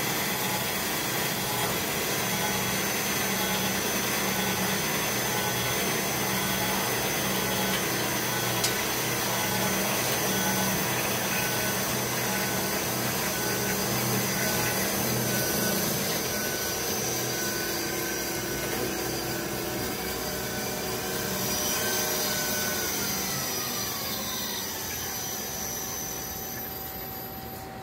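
Cosen C4 band saw running, its blade cutting through a solid stainless steel (SAE 304) round bar: a steady machine noise with a whine. About three-quarters of the way through, a tone falls in pitch, and the sound eases near the end.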